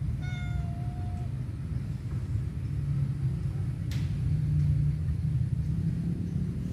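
A calico cat gives one meow near the start, about a second long and level in pitch, over a steady low rumble; a single sharp click comes about four seconds in.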